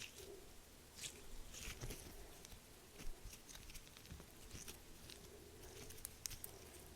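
Faint, irregular crackling and clicking of close-miked ASMR handling, with a few louder clicks scattered through.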